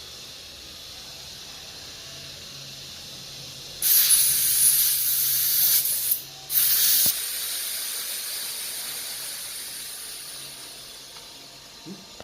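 Air hissing at a motorcycle inner tube's valve: a faint steady hiss, two loud blasts about four and six and a half seconds in, then a softer hiss that slowly fades.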